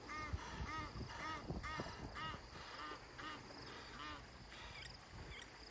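A bird calling over and over: short calls, each rising and falling in pitch, about two a second, slowly growing fainter.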